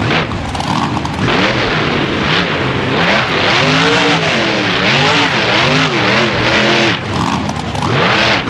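Monster truck engine revving hard, its pitch rising and falling several times in quick swings over a steady wash of noise.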